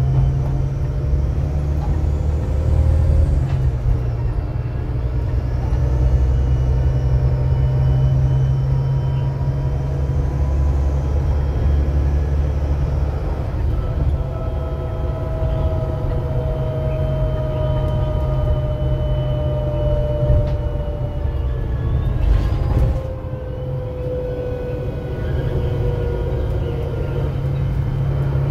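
VDL DB250LF double-decker bus's engine and driveline running under way, heard from inside the passenger saloon: a steady low rumble with a tuneful whine whose pitch slowly drifts. About three quarters of the way through there is a brief hiss, and the note drops and runs a little quieter.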